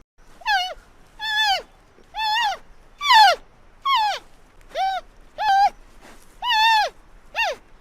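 Giant panda calling over and over: about nine short, high bleating calls, some brief and some longer, each with a pitch that arches and then drops at the end.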